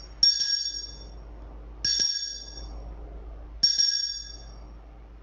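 Small altar bell struck three times, each high, bright ring dying away over about a second. It marks the elevation of the consecrated host at Mass.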